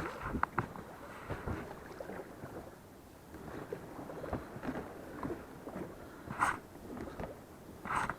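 Small boat on a river being boarded and rowed: oars knocking against the boat and dipping, with two louder strokes about a second and a half apart near the end.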